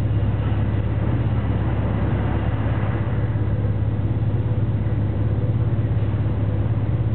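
Elevator cab rising in its shaft: a steady low hum and rumble from the running lift.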